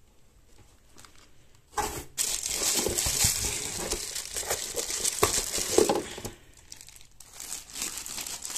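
Plastic packaging wrap crinkling and rustling as parts of a new mixer grinder are handled and lifted out of their cardboard box. It starts about two seconds in, dies down about six seconds in, and picks up again near the end.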